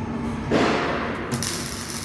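Electric welding arc striking up about a second and a half in and hissing steadily, after a short loud rushing burst about half a second in, over a steady low workshop hum.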